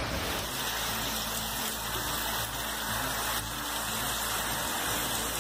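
Heavy rain driven by strong storm winds: a steady, even rushing hiss.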